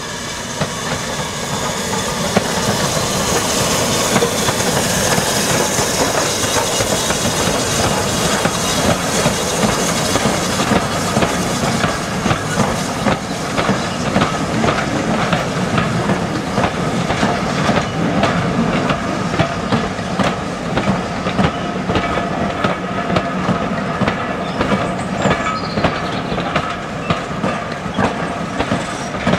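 Steam-hauled passenger train of wooden-bodied coaches running past. The locomotive's working is heard first, then the coach wheels beat a steady clickety-clack over the rail joints as the carriages roll by in the second half.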